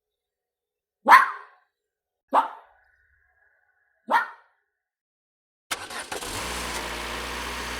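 A dog barking three single sharp barks, spaced about one to two seconds apart. About two-thirds of the way in, a car engine starts running steadily.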